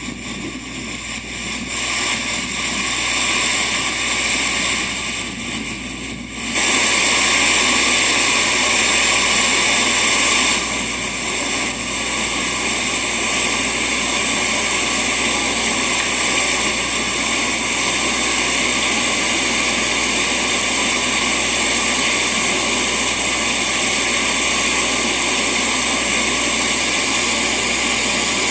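Steady rush of water from a mountain stream in a gorge. It grows suddenly louder about six and a half seconds in and eases slightly about four seconds later.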